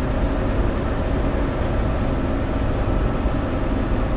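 Steady engine drone and tyre noise from a car-hauler semi truck cruising on the highway, heard from inside the cab.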